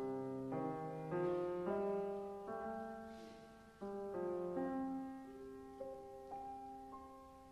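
Piano playing a slow, quiet piece in held chords, moving to a new chord every second or so and growing softer near the end.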